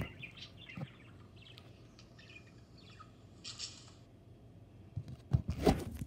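Pet bird in its cage giving soft, short chirps, with a brief hissy call about halfway through. A few sharp knocks near the end.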